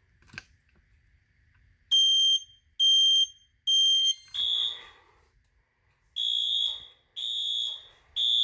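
Kidde i9040 smoke alarm sounding three short high-pitched beeps in the temporal-three alarm pattern as its relay trips the fire alarm panel. This is followed by the system's horn sounding in three-pulse pulses of its own, a little lower and rougher in tone.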